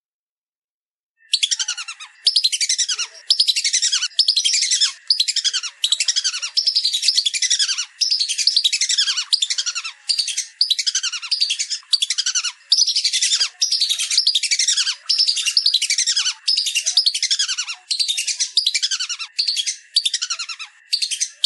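Whistling duck (belibis) calling: rapid high-pitched whistled notes, each falling slightly in pitch, in phrases of about half a second to a second with short gaps, repeated almost without pause from about a second in.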